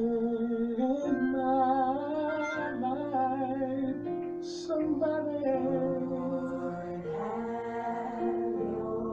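Gospel song playing: a singer holding long, wavering notes over instrumental backing.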